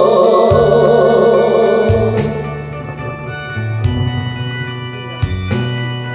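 Instrumental break of a Taiwanese Hokkien pop song on electronic organ and keyboard with a bass line. A held wavering note fades about two seconds in, leaving keyboard chords.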